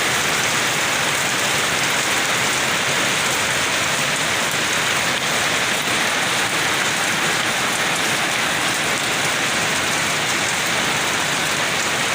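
Steady rain falling, an even continuous hiss with no break.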